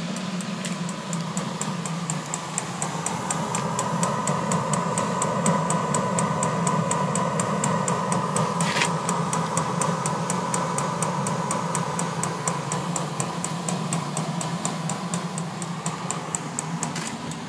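Eberspächer B1L petrol-fired air heater running: a steady blower and burner hum with an even, rapid ticking at about three ticks a second from its fuel dosing pump. A single louder knock about nine seconds in.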